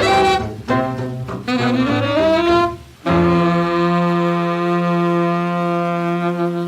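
Closing bars of a 1948 rhythm-and-blues 78 rpm record: the band's horns play a short phrase with rising slides, then hold one long final chord for about four seconds as the record ends.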